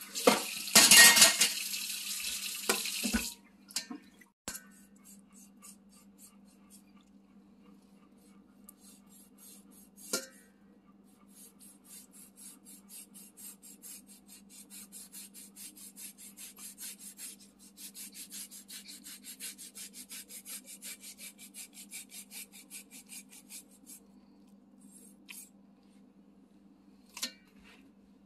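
Chef's knife trimming fat off a raw brisket: a long run of quick, faint slicing strokes through the fat, with a few single knocks on the bamboo cutting board. A loud rush of noise fills the first few seconds, and a faint steady hum sits under it all.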